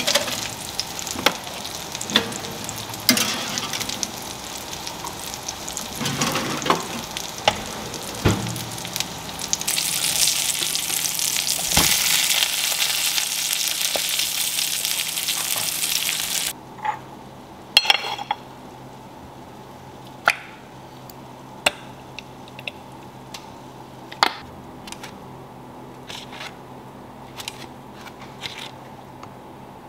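Sharp clinks of metal tongs over a frying hiss, then salmon patties sizzling loudly in oil in an enamelled cast-iron skillet for several seconds. The sizzle cuts off abruptly, leaving quiet room tone with a few sharp taps.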